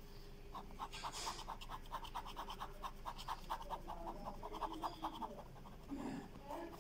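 Ballpoint pen scratching across paper in quick, even hatching strokes, several a second, as a drawing is shaded. The strokes start about half a second in and stop shortly before the end.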